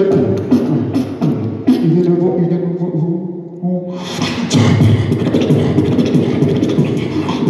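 Beatboxing through a microphone and PA: quick vocal kick and snare sounds, then a stretch of held pitched bass tones, and about four seconds in a denser, bass-heavy beat kicks back in.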